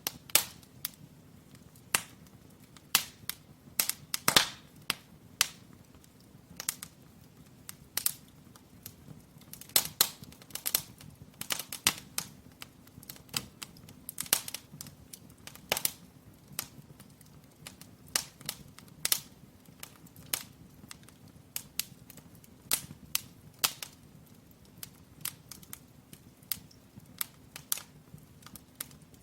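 Firewood burning in an open brick fireplace, crackling with irregular sharp pops and snaps, several a second at times, over a faint low steady hum.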